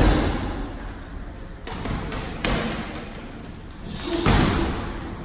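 Kicks landing on a hanging heavy punching bag: heavy thuds, the loudest at the start and another about four seconds in, with a smaller one between, each trailing off in the room's echo.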